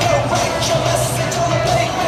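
Loud music with a steady bass line and a beat.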